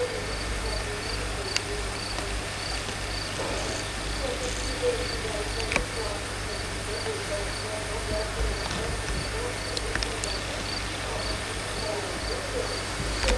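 A cricket chirping steadily, a short high chirp about twice a second.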